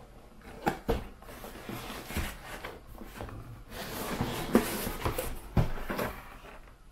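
A cardboard drone box handled on a table: knocks as it is tipped and set down, then cardboard rubbing and scraping with several more knocks as the lid is slid off.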